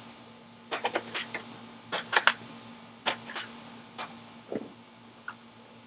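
Plastic latches on a DeWalt tool set case being snapped open, a handful of sharp clicks and snaps in small clusters about a second apart.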